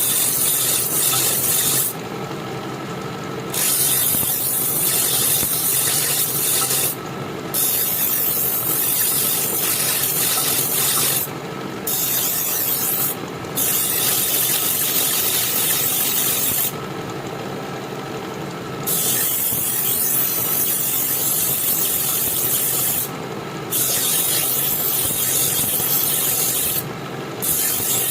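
Abrasive scraping over a rusty steel knife blade in long passes, a scratchy hiss broken by about seven short breaks. A steady hum carries on through the breaks.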